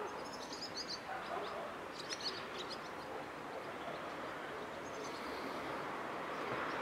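Small birds chirping in short twittering phrases three times, over a steady background rush of outdoor ambience.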